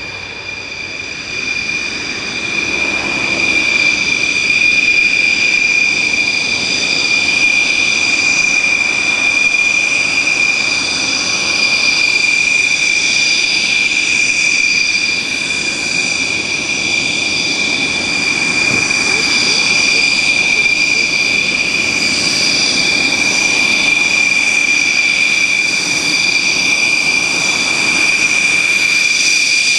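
Dassault Rafale's twin Snecma M88 turbofans whining at taxi power as the jet rolls toward the listener: a steady high-pitched whine over a low rumble, growing louder over the first few seconds and then holding steady.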